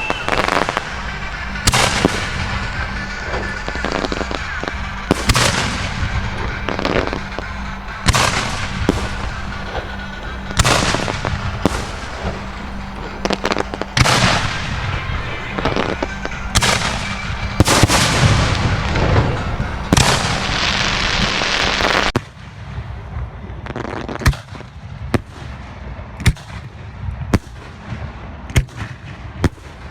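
Fireworks display: shells bursting one after another every second or two, each bang trailing off in crackle and echo. About 22 seconds in the dense barrage stops abruptly, leaving quieter, quick sharp cracks.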